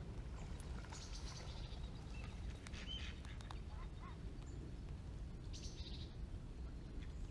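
Birds calling on a pond: a few short, high chirps and calls scattered over a steady low background rumble.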